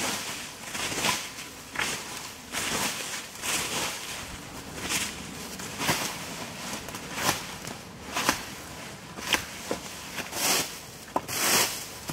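Dry fallen leaves being swept and scraped with a long stick, a rustling swish about once a second, with a few sharp snaps in the second half.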